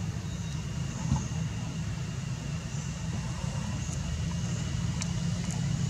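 Steady low outdoor rumble, with a faint thin high tone held above it and a few faint ticks.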